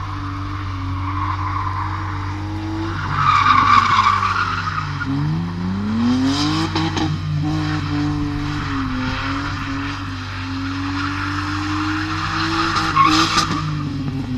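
Car engine held at high revs while drifting, with tyres skidding on the dusty tarmac. The revs drop and climb back up about four to six seconds in, and fall away near the end. Tyre noise surges twice, about three seconds in and again near the end.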